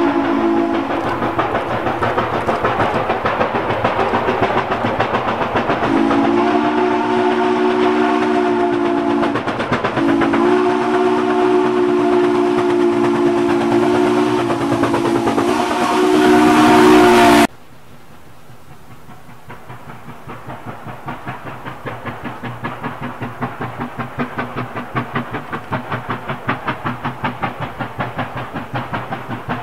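Steam locomotive No. 142 blowing its whistle, several notes at once, in long blasts over the noise of its working exhaust. About seventeen seconds in the sound cuts suddenly to the locomotive heard from further off, its exhaust beating evenly at about two or three chuffs a second and growing louder as it approaches.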